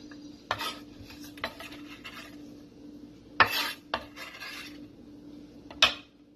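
Chef's knife scraping finely chopped onion across a wooden cutting board, in a series of short scrapes and knocks; the loudest is about three and a half seconds in, with another near the end.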